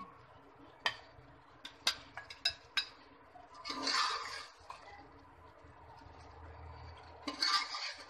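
A metal serving spoon clinking and scraping against a metal cooking pot and a glass serving dish as chicken curry is spooned out. There are several sharp clinks in the first three seconds, then longer scrapes around four seconds in and again near the end.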